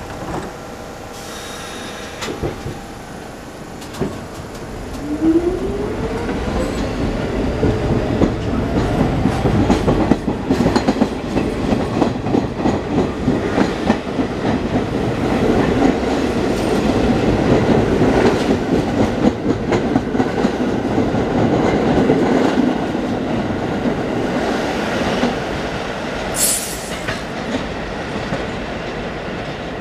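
R46 subway train pulling out of an elevated station: a motor whine rises in pitch as it accelerates, then the wheels clatter rhythmically over the rail joints as the cars pass, fading as the train leaves. A short high hiss comes near the end.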